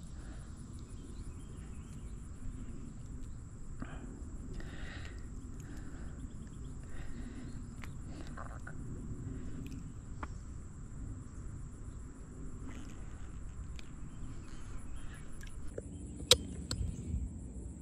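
Outdoor pond-side ambience: insects trill steadily and high-pitched over a low rumble of wind and handling noise. A few faint rustles come in the middle, and there is one sharp click about 16 seconds in.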